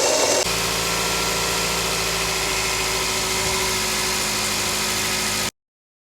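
Car engine idling steadily with its belt-driven accessories turning, one of whose shaft bearings has failed. The sound changes abruptly within the first half second and cuts off about five and a half seconds in.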